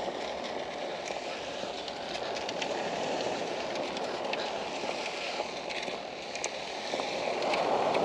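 Small waves washing onto a pebble beach, a steady rush of surf that swells a little near the end.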